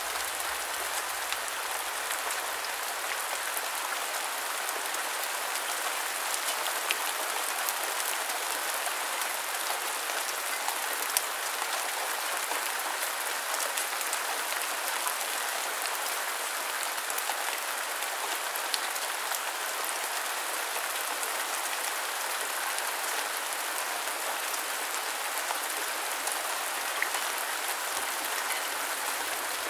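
Steady rain: a dense, even hiss of many drops, with sharper single drop ticks scattered through.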